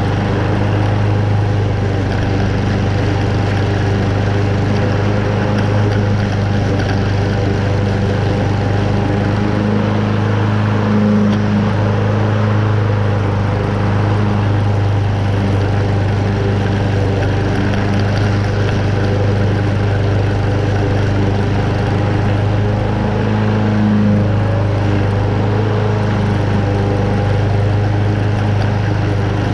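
Honda single-cylinder engine of a Toro Super Recycler walk-behind lawn mower running at a steady speed while cutting moderately wet, tall grass, with only slight swells in its note.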